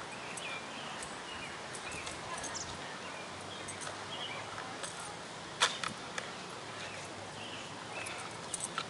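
Outdoor ambience with birds chirping, broken by one sharp snap a little past halfway, a couple of smaller clicks after it, and a quick run of light clicks near the end.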